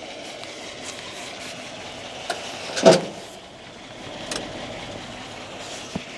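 Old Ford F-250 pickup's engine idling steadily. Over it come a few light clicks, a loud clunk of the cab door about three seconds in, and a sharp door slam at the very end.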